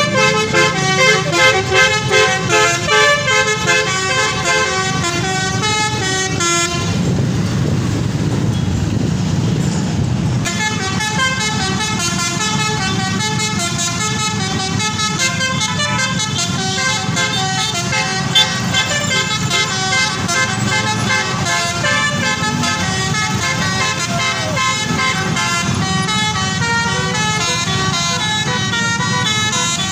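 Bus telolet horn: a multi-tone air horn playing a quick run of stepped notes, over and over. The notes break off for about three seconds a quarter of the way in, leaving a low rumble, then resume.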